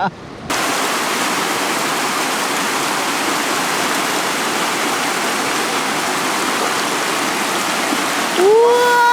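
Mountain stream rushing: a steady, even rush of water that cuts in suddenly about half a second in.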